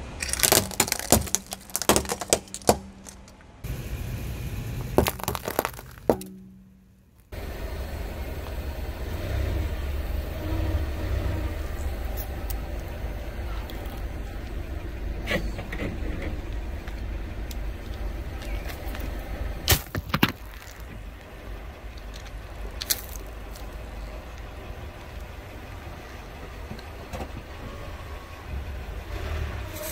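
Hard plastic cracking and snapping under a car tyre, a quick run of sharp breaks over the first few seconds. Later comes the car's steady low rumble as the tyre creeps forward, broken by a few single cracks.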